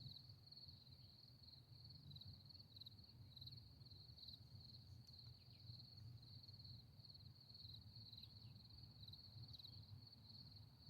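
Faint, steady chorus of insects such as crickets, a continuous pulsing high trill, over a low rumble.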